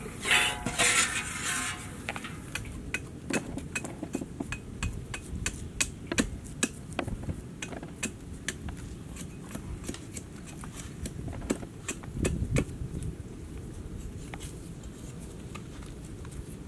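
Irregular sharp clicks and taps of metal being knocked inside a large steel wok as a pile of live snakes is handled in it, with a louder clatter in the first two seconds. The tapping thins out after about twelve seconds.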